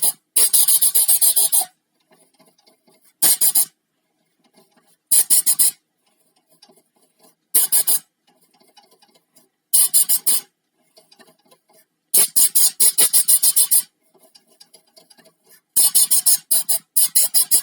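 Compressed air from a compressor's blow gun, fired in seven short blasts of hiss, each half a second to a second and a half long, with faint clicks between them. The air is blowing dust and lint out of a Janome sewing machine's shuttle and bobbin area.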